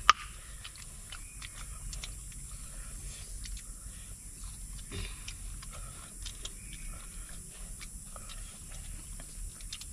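People chewing and eating at close range: scattered small clicks and crunches, with one sharp click at the very start.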